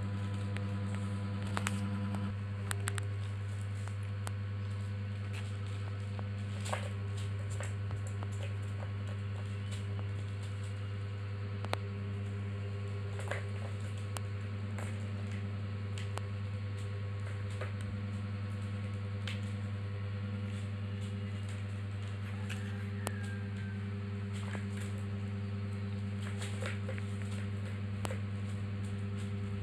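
A steady low hum throughout, with scattered light clicks and taps from a kitten batting the plastic balls in a three-tier ball track toy and moving about.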